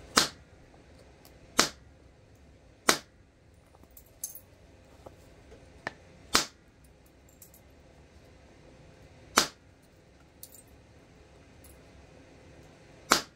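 Flint being knapped with antler tools: six sharp strikes spaced one to four seconds apart, each with a brief ring, and a few faint clicks between them.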